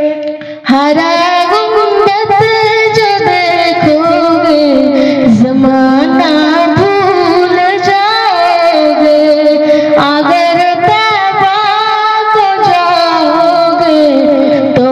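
A high solo voice singing an Urdu naat (Islamic devotional song), holding long, wavering, ornamented notes. The singing breaks off briefly just after the start.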